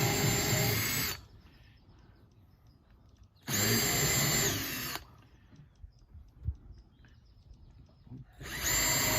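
Power drill boring into the tractor's wooden frame boards in three short runs of about a second and a half each: a steady motor whine that starts and stops, with quiet between runs.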